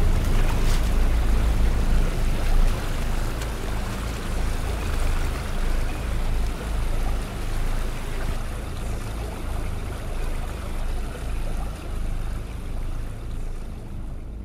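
Rushing water, a dense steady wash with a deep low rumble, swelling and fading about once a second.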